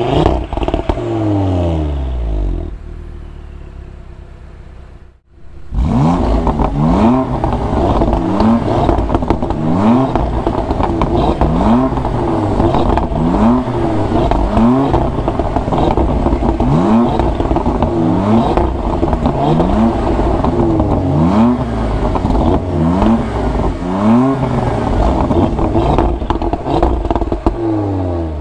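Sports car engine and exhaust revved repeatedly. A rev dies away, then after a brief gap comes a long run of quick throttle blips, one about every second and a half, each rising sharply in pitch and dropping back.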